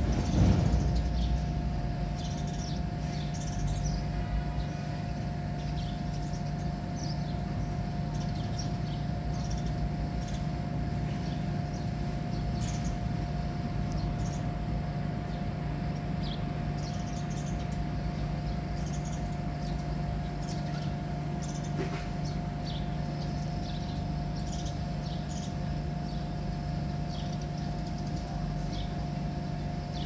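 Birds chirping briefly now and then over a steady low machine-like hum with a constant tone; a short louder rumble at the start.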